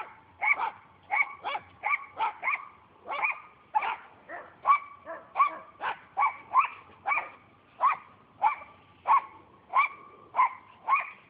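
A dog barking over and over in short, sharp barks, about two a second in a fairly steady rhythm.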